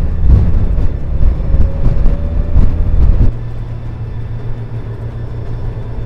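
Honda Gold Wing motorcycle at highway speed: loud wind buffeting on the microphone over the engine's drone, with a faint tone rising slowly. About three seconds in the sound switches abruptly to a quieter, steadier low engine and road drone.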